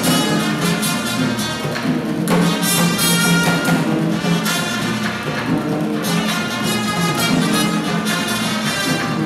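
Music with brass instruments playing at a steady loudness, without a break.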